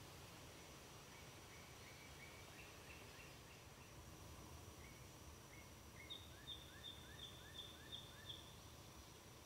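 Faint outdoor background with a songbird singing short repeated chirps in a few runs. The last and clearest run comes in the second half: about seven quick two-part notes, each a high note followed by a lower one.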